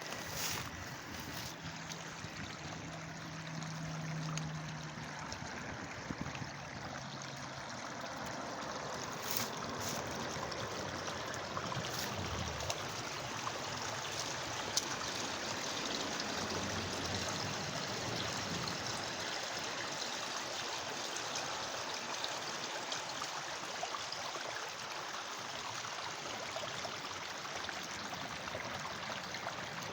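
Small creek running, a steady rushing trickle of water over its bed.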